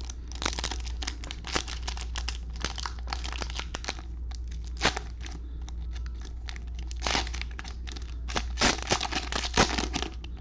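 Plastic cello wrapper of a trading-card pack crinkling and being torn open, a steady run of crackles that grows loudest near the end.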